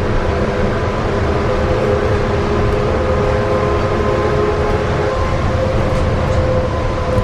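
Trolleybus running steadily through a road tunnel, heard from inside the front of the bus. A constant low rumble of tyres and road carries a steady whine from the electric drive.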